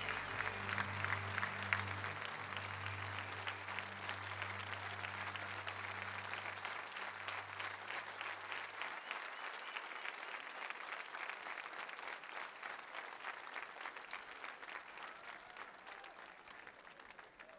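Large audience applauding, dense clapping throughout, with a low held note ringing underneath that stops about halfway through. The applause fades away near the end.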